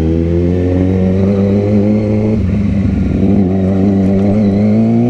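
Motorcycle engine running under acceleration, its pitch climbing slowly. About two and a half seconds in, the sound roughens briefly before the steady climb picks up again.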